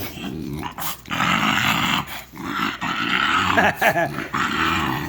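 French bulldog growling in play while it jumps and bites at gloved hands, in long rough stretches with short breaks.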